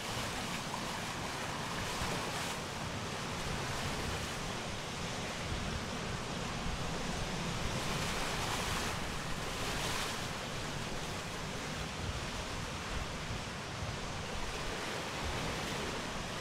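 Steady rush and hiss of water streaming past a sailing catamaran's hulls under way at speed, with wind buffeting the microphone. The hiss swells briefly a few times, about two, eight and ten seconds in.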